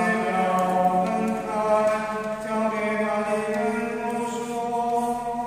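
Slow sung liturgical chant with long held notes that move in steps from one pitch to the next.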